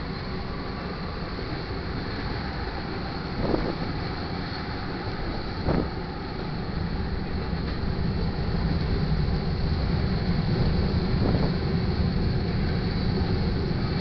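Freight cars of a manifest train rolling past: a steady rumble of wheels on rail, with a few brief clanks. The rumble grows louder after about eight seconds.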